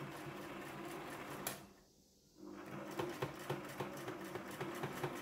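Home sewing machine stitching through denim with rapid, even needle strokes. It stops with a click a little after one and a half seconds, pauses for about a second, then starts stitching again.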